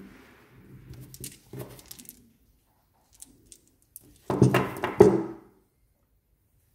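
Handling noise on a tabletop: small metal bolts clicking and clinking, then a black plastic horseshoe-shaped coupling plate and bolts set down with a short clatter and two sharper knocks about four and a half and five seconds in.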